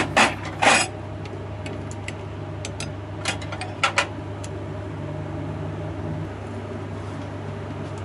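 A steady low electric hum, like a running kitchen fan, with a few short, loud noises of handling in the first second and again about three to four seconds in, and scattered faint ticks.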